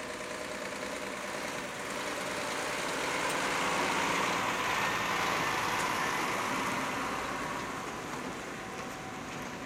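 Scania truck and trailer unit driving slowly past: its diesel engine and rolling tyres get louder to a peak about four seconds in, then fade as it moves away.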